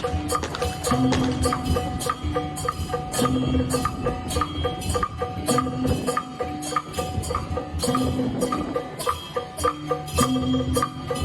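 Taiwanese temple procession percussion playing a steady, repeating rhythm of drum strokes and ringing gong beats.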